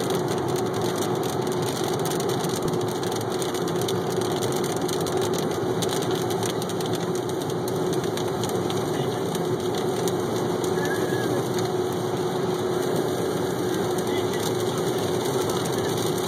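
Inside a car driving on a rain-soaked highway: steady road and engine noise, tyres running on wet pavement and rain on the windshield, with a constant low hum.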